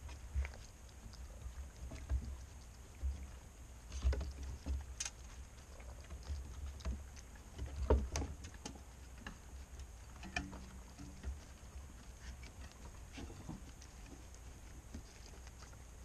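Raccoons rummaging and eating in scattered birdseed on a wooden deck close to the microphone: irregular clicks, rustles and low thumps as paws and bodies move through the seed and bump the boards, with the loudest knocks about four and eight seconds in.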